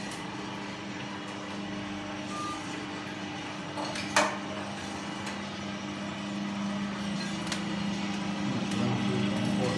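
Small drum coffee roaster running, its 1 hp electric motor and gearbox turning the drum with a steady hum. One sharp clack about four seconds in and a fainter click near the end.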